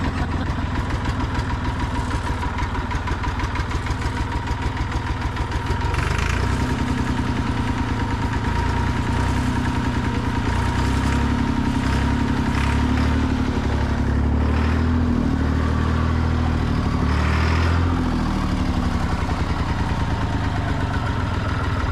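Massey Ferguson 200 Turf tractor's three-cylinder diesel engine running roughly on a temporary fuel can. It picks up and gets louder about six seconds in, then wavers. It is missing on at least one cylinder, and the owners put the unevenness down to a poor fuel siphon starving it of fuel.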